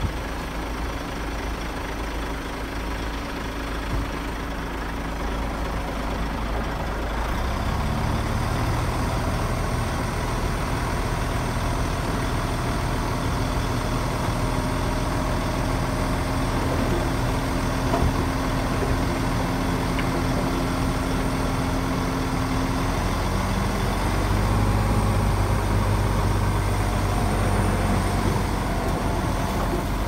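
Heavy diesel engine of earth-moving machinery running steadily. Its note steps up and grows louder about seven seconds in, and shifts again about three-quarters of the way through.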